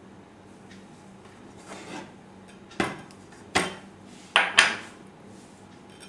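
Dishes knocking and clinking as a plate of sliced vegetables is handled and set down beside a wooden cutting board: a soft rustle, then four sharp knocks, the last two close together.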